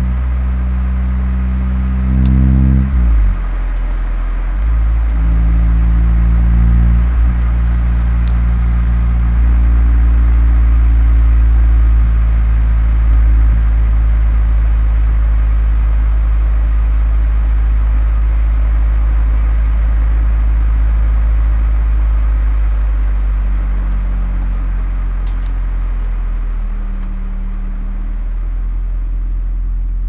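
1994 Nissan Primera P10 1.6 SLX's four-cylinder engine and exhaust running under way, with a steady low drone. The engine note changes about three seconds in, then holds steady.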